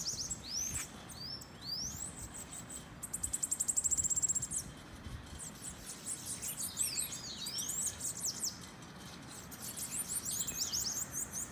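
Bananaquits (sibites) singing: high, thin chirps and quick sweeping notes, with a loud, fast trill about three seconds in that lasts around a second and a half.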